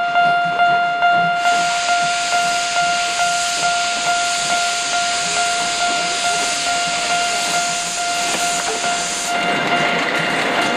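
C58 steam locomotive starting away, with a loud hiss of steam venting low around its cylinders from about a second and a half in until near the end. After that the hiss stops and lower running noise takes over. A steady high tone sounds underneath throughout.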